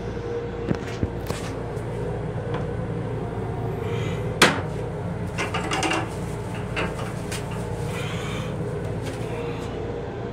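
Toilet paper pulled and torn from a wall dispenser, with rustling and clicks and one sharp click about four and a half seconds in. Under it runs the steady hum and rumble of an M7 electric railcar.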